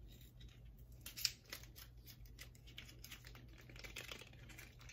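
Sealed wrapper of a small lip gloss being worked open by hand: faint, irregular crinkling and ticking, with one sharper snap about a second in.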